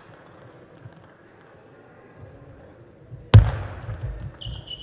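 Table tennis point under way in a hall: quiet until one loud, sharp knock a little over three seconds in, then a run of lighter knocks from the ball and the players' feet, with short high shoe squeaks on the court floor near the end.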